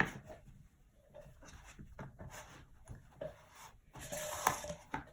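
Kinetic sand being handled and worked: soft rubbing and scraping with scattered light taps, and a louder scraping stretch about four seconds in.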